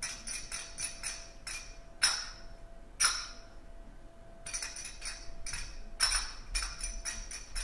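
Zills (metal finger cymbals) played by a trio in a fast, even pattern of bright ringing strikes. There are louder accented strikes about two and three seconds in, then a short gap where one strike rings on before the pattern resumes, with another strong accent near six seconds.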